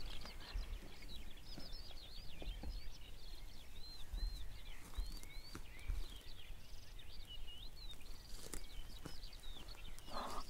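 Spring birdsong from several birds at once: short, high, overlapping chirps and whistled phrases that swoop up and down, with a low rumble underneath.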